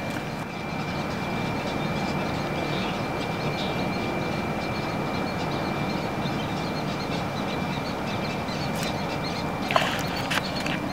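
Steady low outdoor rumble, with faint bird chirps above it and a brief splash in the water near the end.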